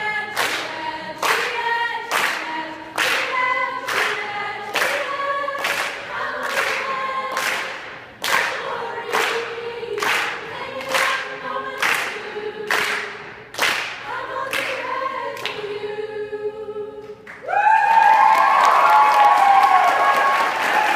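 All-female a cappella choir singing in close harmony, with the singers clapping on the beat about once a second. The claps stop near the end, and the group holds a loud final chord as audience applause breaks out.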